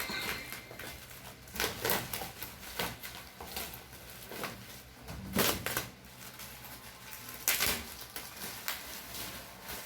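Cardboard box and packaging being handled and opened: irregular rustles, scrapes and knocks, the loudest about two, five and a half and seven and a half seconds in.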